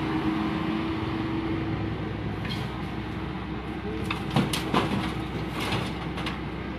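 A hydraulic excavator running with a steady diesel hum and a held low tone. From about halfway through come a series of short knocks and rattles.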